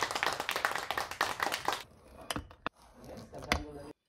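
Rapid clapping of hands that stops about two seconds in. After it come a few soft knocks and crunches as a knife cuts into the crust of the baked brioche.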